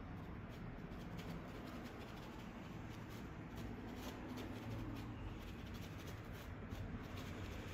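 Faint, irregular scratching of a paintbrush dabbing oil paint onto canvas, over a low steady hum.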